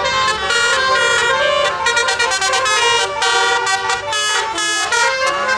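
Telolet bus horn playing a tune: a rapid run of short, multi-tone horn notes stepping up and down in pitch.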